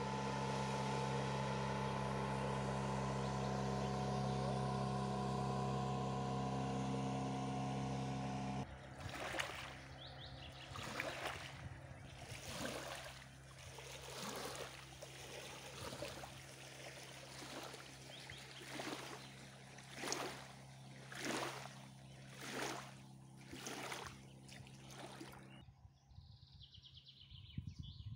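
Motorboat engine running steadily as the boat passes on the river. It breaks off suddenly and gives way to small waves lapping against the reedy bank, one splash a little more than once a second.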